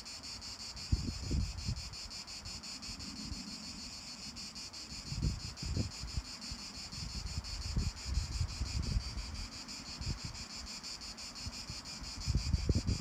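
A steady, high-pitched chorus of summer insects with a rapid, even pulsing. Gusts of wind buffet the microphone now and then, heavier near the end.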